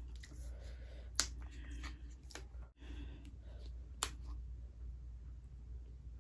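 Plastic water bottle crackling in the hand as its screw cap is twisted open, with scattered small clicks and two sharp snaps, the second about four seconds in as the cap comes loose.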